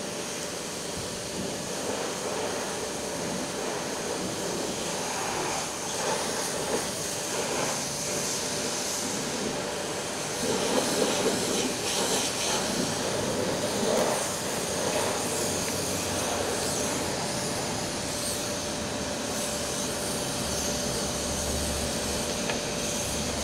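Petrol pump running as fuel gushes from the nozzle into a Pulsar NS200's fuel tank: a steady rushing hum with a constant thin whine.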